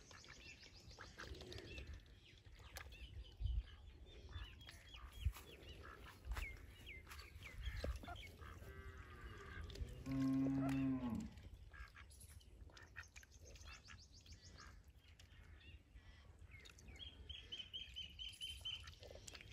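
Faint chirping of small birds, with one low, drawn-out moo from cattle about ten seconds in, a little over a second long and dropping in pitch at its end.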